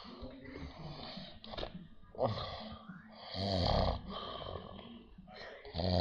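A man snoring in his sleep: a long, loud rattling snore a little past halfway, and another starting near the end, with quieter breathing between.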